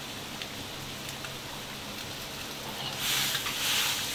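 Spicy maoxuewang broth boiling hard in a wok over a high gas flame, a steady bubbling hiss with faint ticks. About three seconds in it gets louder for a second as a ladle stirs through the broth.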